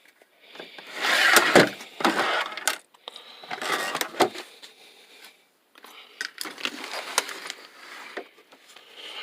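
Metal hand tools, wrenches and ratchets, clinking and rattling as they are handled in a tool chest drawer and its wrench tray. The clatter comes in irregular bursts.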